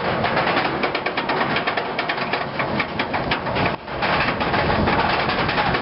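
Roller coaster lift hill on the Mantis stand-up coaster: the lift chain and anti-rollback ratchet clattering in rapid clicks as the train is hauled up, dipping briefly nearly four seconds in.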